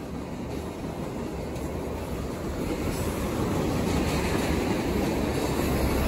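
Freight train of tank cars rolling past, steel wheels running over the rails, growing steadily louder.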